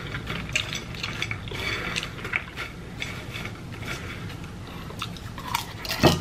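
Hands rummaging through popped popcorn, giving a run of short, crisp rustles and crackles. Just before the end comes a single louder thump.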